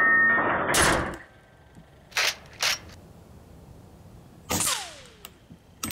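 AEA HP Standard Custom .25-calibre PCP air rifle shooting at steel silhouette targets. There is a sharp shot about a second in, two short clicks a moment later, and another shot at about four and a half seconds followed by a brief falling ring.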